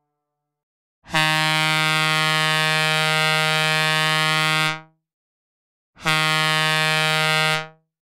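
Synthesizer recreation of a Leslie A-200 locomotive air horn sounding one long blast of about four seconds, then a shorter blast of under two seconds, each a single steady note.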